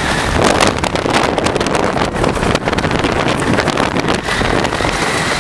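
Wooden roller coaster train running fast along its wooden track, with continuous rattling and rumbling mixed with heavy wind buffeting the microphone.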